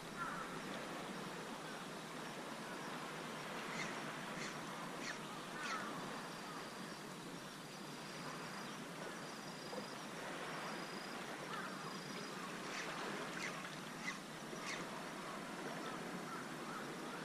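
Faint seaside ambience: a steady wash of water and air, with a few short bird calls that drop in pitch, and a run of five short high peeps in an even rhythm midway through.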